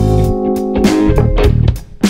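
Background music: a guitar-led track with bass and drums.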